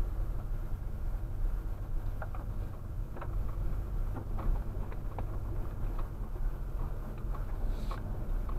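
A vehicle driving over a rough dirt track, heard from inside the cabin. A steady low rumble runs throughout, with scattered small knocks and rattles from the bumpy surface.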